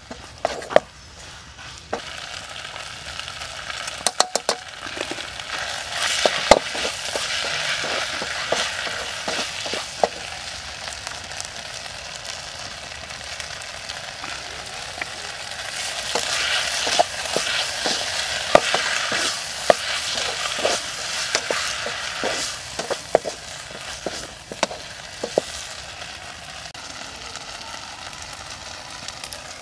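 Noodles and small shrimp stir-frying in a metal pot: a steady sizzle, with a wooden spatula scraping and knocking against the pot in scattered clicks.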